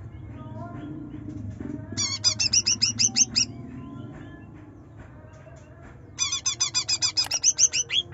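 A green leafbird (cucak ijo) singing two bursts of fast, rapid-fire trilled notes, each note a quick upward slur, the first about two seconds in and the second from about six seconds in, over a faint low background hum.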